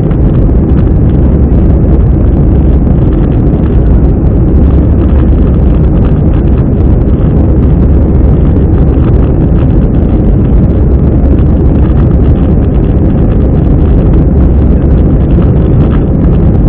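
Cabin noise of an Airbus A320 climbing after takeoff, heard from a window seat over the wing: the jet engines and the airflow make a loud, steady low rumble with a rushing hiss above it.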